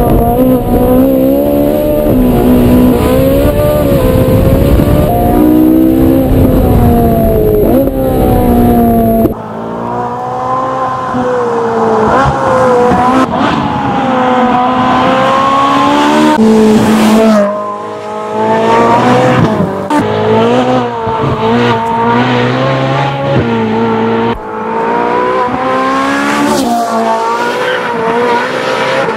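Ferrari 458 Spider's naturally aspirated V8 driven hard, its pitch climbing and falling again and again through gear changes and lifts off the throttle. For the first nine seconds heavy wind rumble sits under the engine; about nine seconds in the sound changes abruptly and the rumble is gone.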